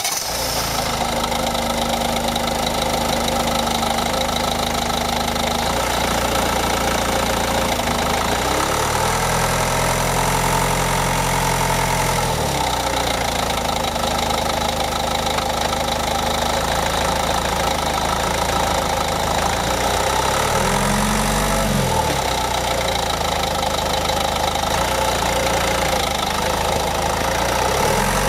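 Ford Focus 1.5-litre engine running, its revs rising about nine seconds in for several seconds and again briefly around twenty seconds in. No clicking can be picked out over it.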